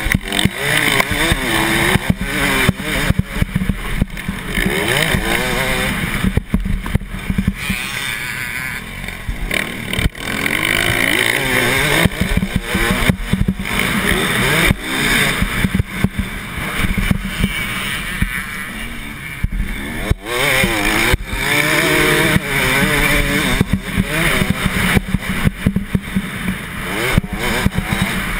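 Motocross bike engine revving hard and dropping back again and again as the rider works through corners and gears, with many short thumps and rushing noise over it.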